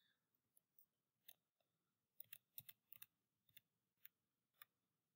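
Faint, irregular clicking of a computer keyboard and mouse during text editing: a dozen or so short, sharp clicks, some in quick clusters.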